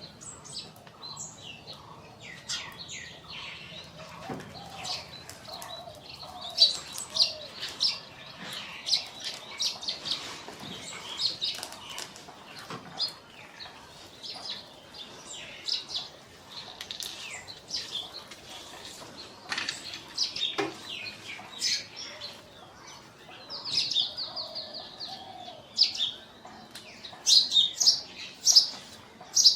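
Scale-breasted munias calling: a busy run of short, high chirps, with louder clusters of calls near the end.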